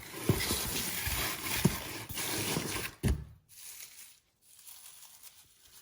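Hands rummaging through a box of packaging, rustling and crinkling, with a few light knocks of items being moved. It drops to quieter handling about three seconds in.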